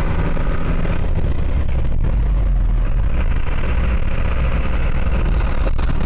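Steady low rumble of a vehicle's engine and tyres at highway speed, heard from inside the cab.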